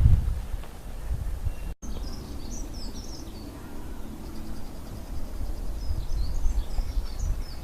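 Birds chirping in two short bouts over a steady low rumble, with a brief cut-out in the sound about two seconds in.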